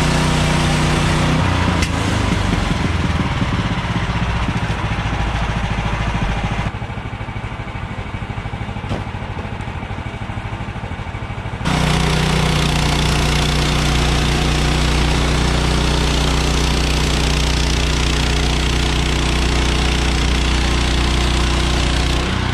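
Gasoline engine of a Woodland Mills manual bandsaw sawmill running at speed. About seven seconds in it drops to a slower, quieter idle for about five seconds, then comes back up sharply and runs steady again.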